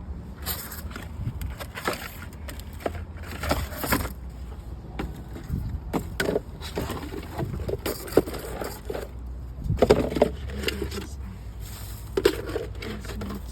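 Large plant pots being handled: irregular knocks, scrapes and clatter over a low, steady rumble.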